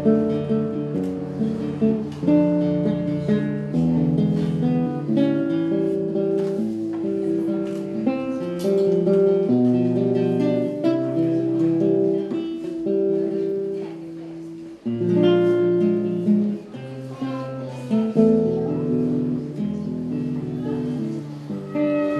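Background music played on acoustic guitar, plucked and strummed notes, with a brief lull about fifteen seconds in.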